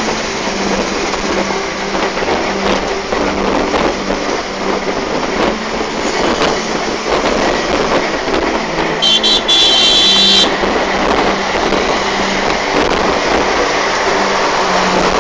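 Steady road and wind noise with a low engine hum, heard from inside a vehicle travelling at highway speed. About nine seconds in, a high-pitched horn gives a short toot and then a longer one.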